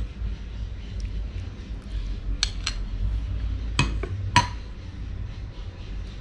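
A metal spoon clinking against dishes while chutney is served: a few sharp clinks over about two seconds, the last the loudest with a short ring, over a low steady hum.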